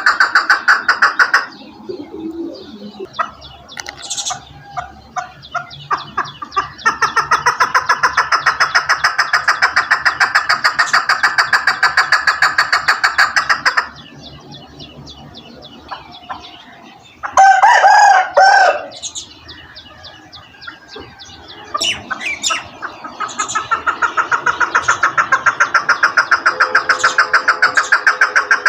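Male chukar partridge calling in long runs of rapid, evenly repeated chuck notes, in three spells with quieter gaps. About two-thirds of the way through comes one short, much louder call.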